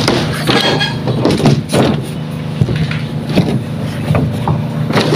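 An engine running steadily, with irregular knocks of a hammer nailing studs onto wooden formwork.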